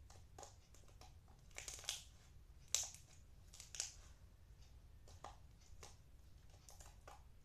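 Slime made with magic sand being squeezed and stretched by hand, giving soft crackles and squishes, with louder crunchy pops about two, three and four seconds in.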